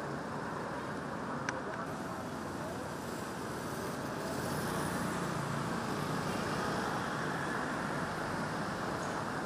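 Steady city street traffic noise from passing vehicles, with a brief click about one and a half seconds in.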